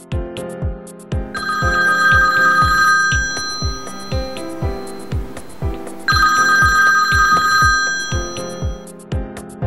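An iPhone ringing with an incoming call: two rings of about two seconds each, roughly five seconds apart. Background music with a steady beat plays under it.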